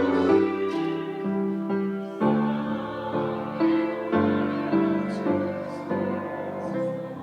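Slow piano music: held chords and notes changing about once a second, the accompaniment to a sung hymn.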